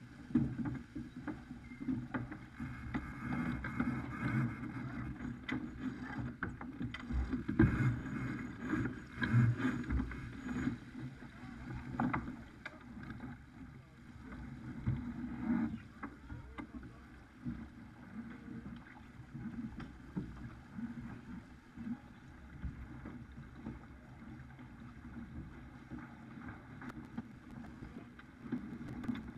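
Wind and water rushing past a Farr 280 racing sportsboat, heard on a deck-mounted camera. Scattered knocks and clatters of crew and rigging come through while the spinnaker is hoisted.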